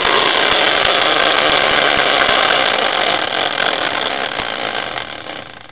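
Hand-spun caster wheel used as a prize wheel, whirring on its axle as it spins fast, then slowly fading over about five seconds as it winds down.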